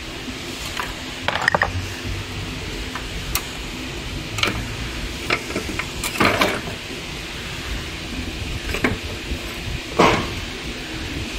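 Metal clinks and knocks as a Mercedes E300's water pump housing is worked loose by hand and pulled off the engine block, irregular and scattered, the loudest about six and ten seconds in.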